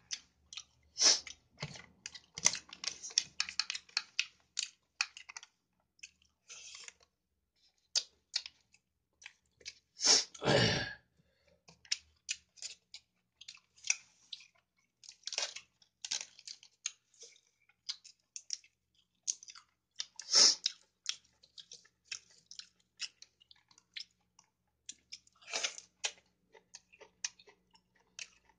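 Close-up mukbang eating sounds: chewing chicken biryani and crisp raw lettuce, with many short wet mouth clicks and smacks. A louder crunch comes about ten seconds in, and another sharp one near twenty seconds.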